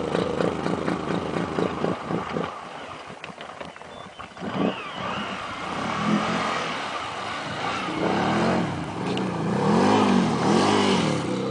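2010 Can-Am Renegade 800 XXC's V-twin engine driven through shallow water: running low and pulsing at first, dipping quieter, then revved up and down several times in quick rises and falls, loudest as the quad lifts its front wheels in a water wheelie near the end.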